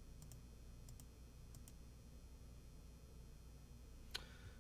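Faint computer mouse clicks over a low steady room hum: a few quick pairs of clicks in the first couple of seconds, and a sharper single click near the end as text is selected.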